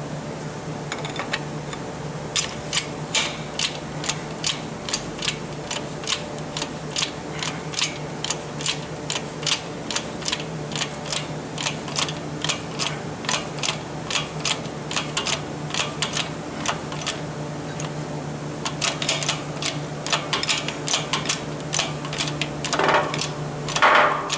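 Steady run of light, even taps, about two and a half a second, as a part is driven down into a 4T65E transmission channel plate, over a steady low hum. The taps pause briefly once. A louder scraping clatter comes near the end.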